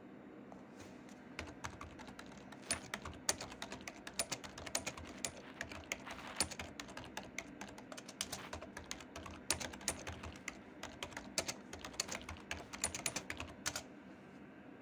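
Typing on a computer keyboard: quick, irregular runs of key clicks that start about a second in and stop about a second before the end, over a faint steady hum.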